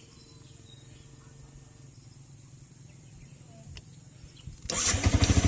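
Faint low hum, then about four and a half seconds in a Yamaha R15 v2's single-cylinder engine starts on the electric starter and runs with a fast, even beat. It catches on the first press now that the suspect Denso iridium spark plug has been swapped for a spare NGK plug.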